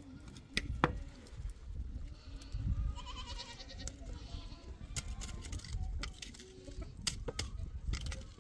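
Goats bleating in short calls, with several sharp knocks and clicks scattered through.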